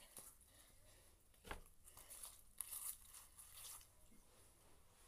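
Near silence with faint crinkling, rustling handling noise and a soft tap about a second and a half in.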